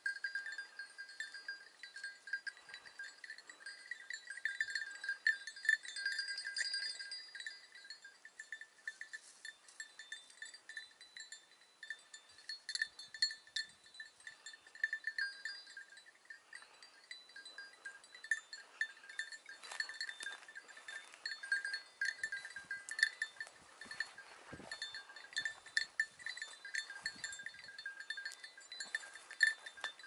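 Small metal bells jingling irregularly throughout, their ringing notes hanging on between strikes.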